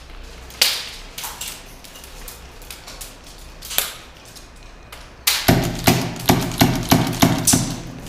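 Airsoft gunfire in a close exchange: a few scattered sharp snaps, then about halfway through a quick string of about ten loud cracks, three or four a second.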